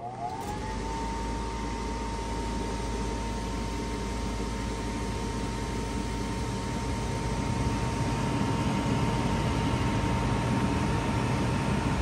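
Draft inducer motor of a 2007 Heil gas furnace starting up: its whine rises in pitch for about a second, then holds as a steady high hum over rushing air. This is the first step of the furnace's starting sequence.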